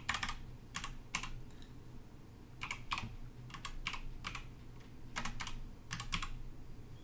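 Computer keyboard keys tapped in short, irregular groups of one to three keystrokes, with a faint steady low hum underneath.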